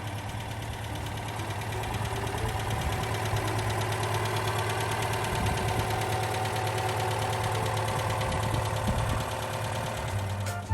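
Citroën 2CV's air-cooled flat-twin engine running steadily at idle.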